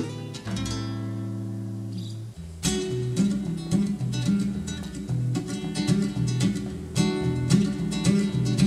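Nylon-string classical guitar: a chord held and left ringing for about two seconds, then rhythmic strummed chords from about three seconds in.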